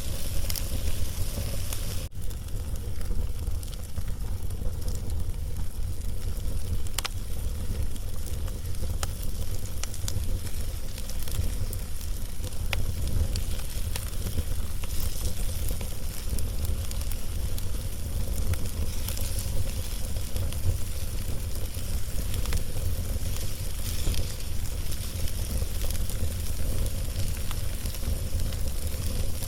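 Log fire burning, with scattered sharp crackles and pops over a fizzing hiss and a steady low rumble.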